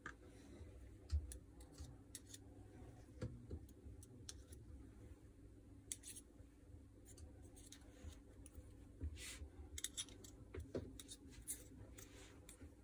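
Faint scattered clicks and handling noises as red grease is smeared by hand onto a metal part of a Makita 4329 jigsaw's gear housing, over a low steady hum.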